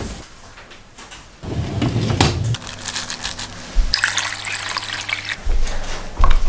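Quick succession of kitchen sounds: a low rumble, then a steady low hum, then water running or splashing for about a second starting around four seconds in, with low thumps near the end.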